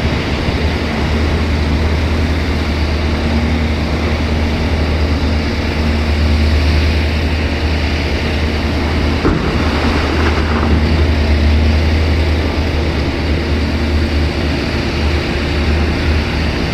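Heavy diesel engine of earthmoving machinery running steadily under load with a deep, continuous drone. A couple of brief knocks come about nine and ten seconds in.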